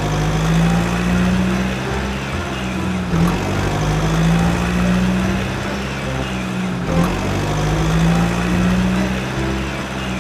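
Truck engine running steadily with a low hum, the pitch dipping briefly about three and seven seconds in.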